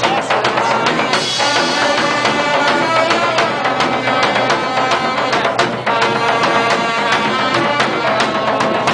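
Street band playing, horns sounding held notes over a busy, steady drum beat.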